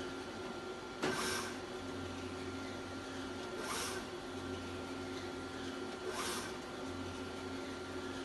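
Mimaki UJF-3042HG UV flatbed printer running a print job: a steady motor hum with a short rushing burst about every two and a half seconds as the carriage moves back and forth. The burst about a second in is the loudest.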